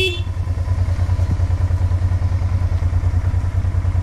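Honda Transalp 700's V-twin engine running at low revs as the motorcycle rolls slowly, a steady, evenly pulsing note heard close up from the bike.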